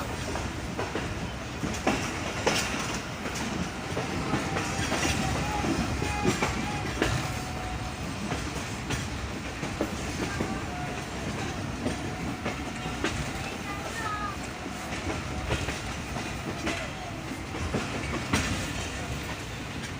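Passenger train running along the track, its wheels clattering in irregular clicks over the rail joints under a steady rumble, with brief faint wheel squeals now and then.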